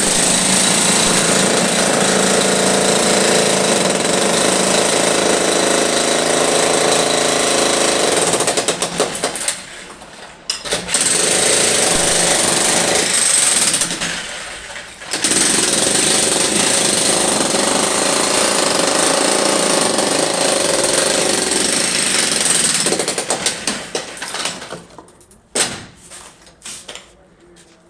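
Power tool running hard and continuously, stopping briefly twice, about ten and fourteen seconds in, then cutting out near the end with a few short restarts.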